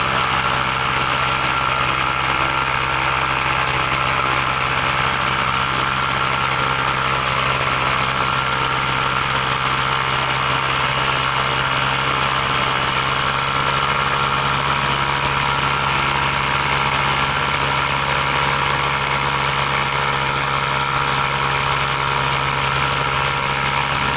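Motors and propellers of the aircraft carrying the camera, running at a steady, unchanging pitch close to the microphone.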